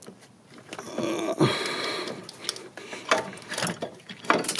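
Rubbing, scraping and light knocks of the unbolted rear engine mount of a 2002 Mazda Protege 5 being worked loose by hand against its bracket and the surrounding parts. There is a scraping stretch about a second in, then scattered clunks and clicks.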